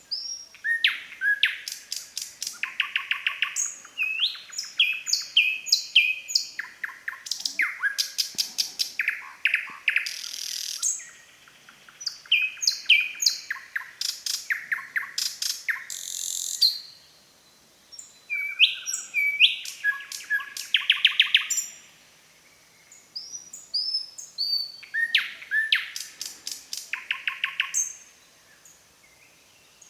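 Nightingale singing. It gives phrases of rapid repeated notes, clicking trills and upward-sweeping whistles, separated by pauses of a second or two.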